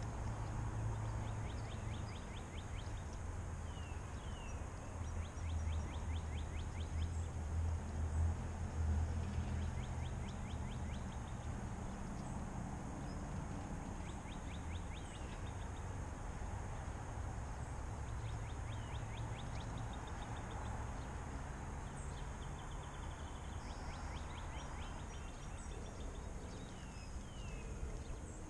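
Outdoor ambience: a steady low rumble with small birds calling on and off, short fast trills and a few brief falling chirps that come back several times.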